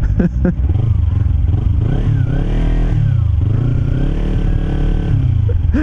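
Kawasaki Ninja 300 parallel-twin motorcycle engine running at low speed off-road, its revs rising and falling a few times with the throttle.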